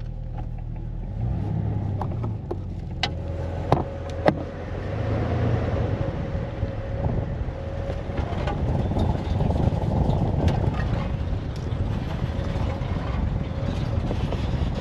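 A vehicle engine running with a steady low drone, with a few sharp knocks or rattles about three to four seconds in.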